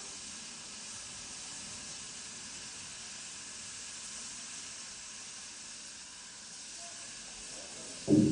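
Steam locomotive standing at a platform, hissing steam steadily. Near the end, a loud pitched sound made of several steady tones cuts in abruptly.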